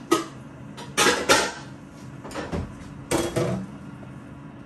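Metal pots and pans clanking against each other as a cooking pot is pulled out of a low kitchen cabinet. There is a knock at the start, a cluster of sharp clanks about a second in, and another a little after three seconds.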